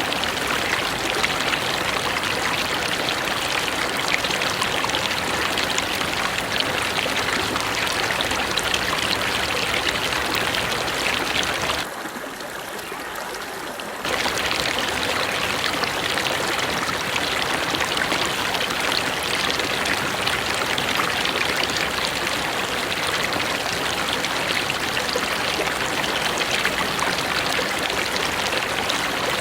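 River water flowing steadily. About twelve seconds in, it briefly turns quieter and duller for about two seconds, then comes back at full strength.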